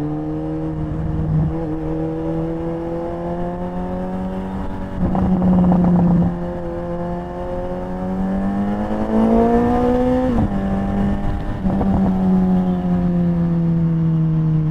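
Suzuki Hayabusa's inline-four engine running while riding slowly in traffic, its pitch climbing gradually under light throttle, then dropping suddenly about ten seconds in as the throttle closes or a gear changes, and easing down after that.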